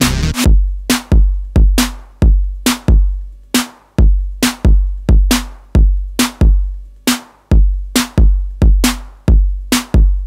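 Electro track in which the other parts drop out just after the start, leaving a drum machine playing alone. Each beat is a deep bass-drum boom with a long fade plus a sharp crack reaching up into the highs, in an even beat of about one and a half hits a second.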